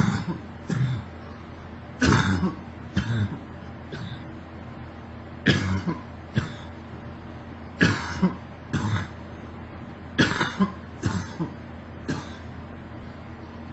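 A girl coughing over and over: a run of short, sharp coughs, often in pairs, coming every second or two.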